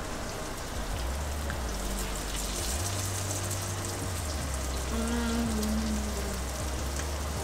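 Mutton snapper fillets sizzling in butter in a skillet: a steady crackling fry. About five seconds in, someone tasting hums a short 'mmm'.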